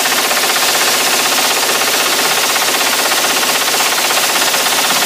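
AR-15 rifle firing a long, rapid, unbroken string of shots from a 100-round magazine, the shots coming evenly and close together.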